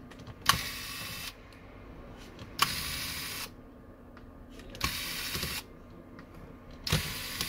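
Electric precision screwdriver running in four short bursts, each under a second, about every two seconds, each starting with a click, as it unscrews the small screws holding the phone's back frame.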